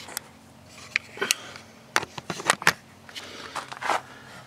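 A series of irregular sharp clicks and knocks, about eight in all, with a few short scrapes in between.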